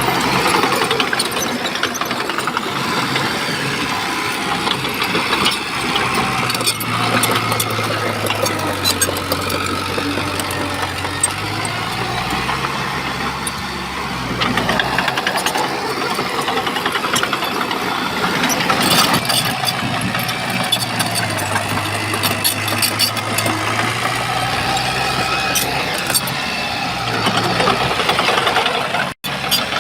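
Diesel engine of a Shantui bulldozer working under changing load, its hum rising and falling in pitch, with frequent clanks and rattles of track and stone. The sound cuts out briefly near the end.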